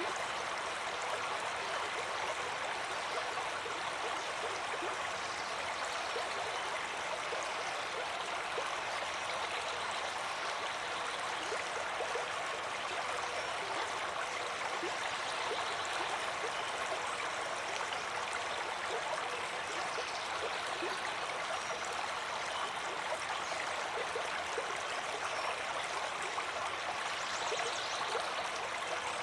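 A stream of water flowing steadily, a constant rushing with a fine gurgle in it.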